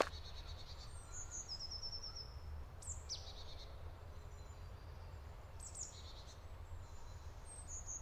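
Faint woodland ambience: small birds give a few short, high chirps and one quick falling call, spread through, over a low steady rumble.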